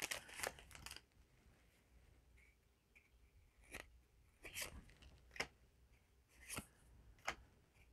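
Trading cards being handled and flipped through, giving a few faint, short clicks and snaps spread over the second half amid near silence.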